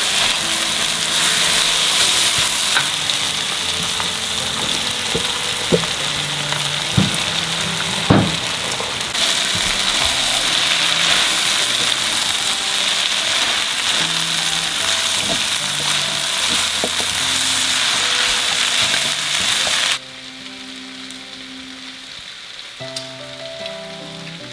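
Shredded chicken in a chilli-tomato spice paste frying with a dense sizzle in a wok while a spatula stirs it. The spatula knocks against the pan a few times. About twenty seconds in, the sizzle drops suddenly to a much lower level.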